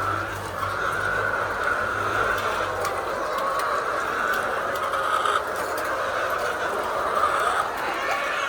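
A flock of laying hens calling and clucking together in a dense, continuous chatter. A low hum underneath stops about three seconds in.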